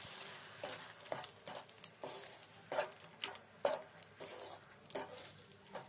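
A cooking spoon stirring thick spinach purée through spiced masala in a metal frying pan, with irregular short scrapes and knocks of the spoon against the pan.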